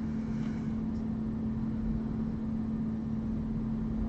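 Steady background hum: one constant low tone over a faint rumble, unchanging throughout, like a fan or electrical equipment running.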